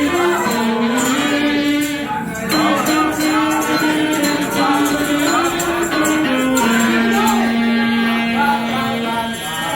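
Music: an instrumental passage of a song, with a tambourine jingling and a melody of long held notes stepping up and down.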